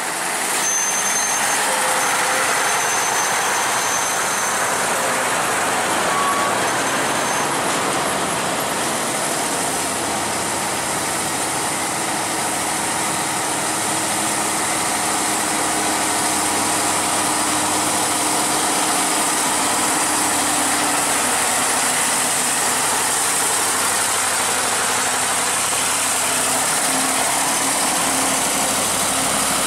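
Heavy diesel trucks grinding up a steep wet grade, engines labouring under load, over a steady hiss of tyres on wet asphalt. Low engine drone grows from about halfway through as a container truck approaches and passes close by.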